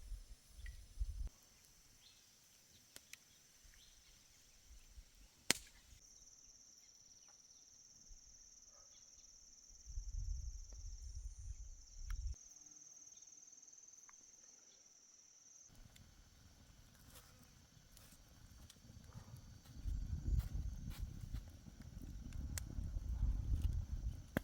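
A steady, high-pitched insect drone, with scattered clicks and knocks and two spells of low rumbling.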